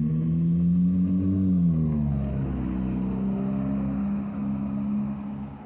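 A car engine running loudly as it drives by: its note climbs slightly, drops about two seconds in, then holds steady.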